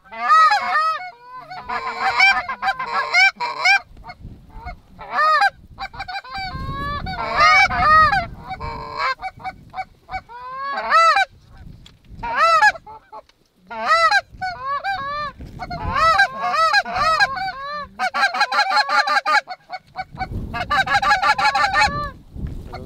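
Geese honking over and over, with several quick runs of rapid honks and clucks. A low rumbling noise comes in twice, about six seconds in and again near the end.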